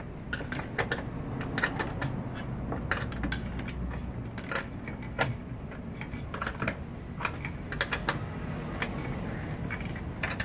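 Irregular light clicks, taps and rustles of hands working foam-sleeved wiring and trim parts against a car's bare inner door panel.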